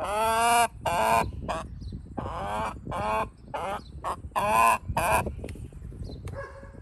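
Rooster calling from inside a wire crate: a run of about eight short, pitched squawks, the first the longest, then shorter ones in quick succession, with a fainter one near the end.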